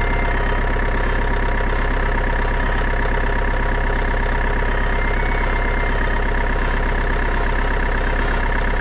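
Engine idling steadily, with an even, fast rumble and no change in speed.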